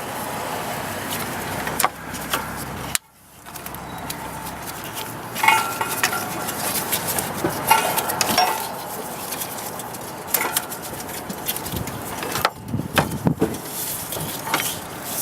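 Handling noise of a serpentine belt being worked by hand around an engine's pulleys: rubber rubbing and scraping with scattered small metallic clicks and clinks, and a couple of short squeaks.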